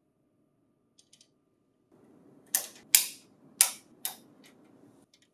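Flathead screwdriver prying screw caps out of a printer tray's side panel: two faint ticks, then four sharp clicks as the caps snap loose, followed by a couple of lighter ticks.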